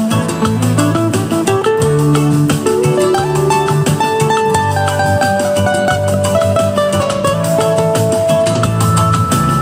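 Acoustic guitar playing a Latin-flavoured piece, a steady strummed rhythm under a melody of held notes.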